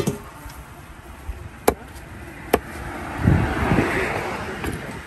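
Three sharp knife strikes chopping through a large catla fish on a cutting block, spaced about a second apart. Then a louder rushing noise swells and fades.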